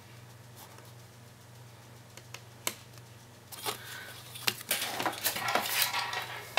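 Black cardstock paper box being handled and set down on a craft mat: rustling and light taps of card, starting about halfway through after a few quiet seconds. A low steady hum runs underneath.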